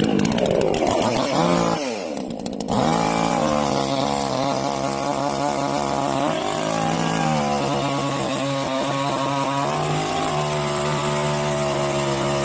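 58cc two-stroke gasoline chainsaw engine running: its pitch falls over the first couple of seconds, then about three seconds in it picks up again and holds a steady high speed.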